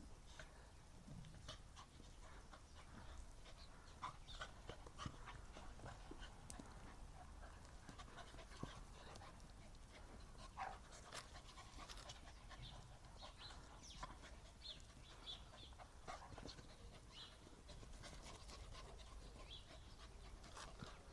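Two dogs play-fighting, faintly panting, with scattered brief sounds of mouthing and scuffling as they grab at each other.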